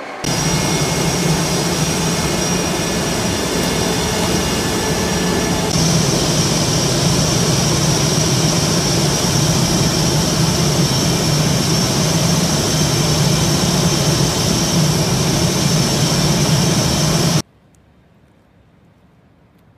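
Navy F/A-18 Hornet jet engine running on the ground: a steady high turbine whine over a low rumble. The tone shifts about six seconds in, and the sound cuts off abruptly near the end.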